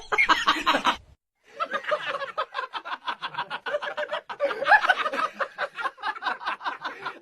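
A person laughing in quick, rapid bursts, starting after a brief break about a second in.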